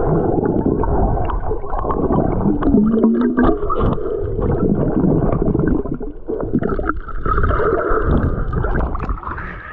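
Water churning and gurgling around a submerged waterproof camera, muffled and heavy in the low end, with scattered small knocks.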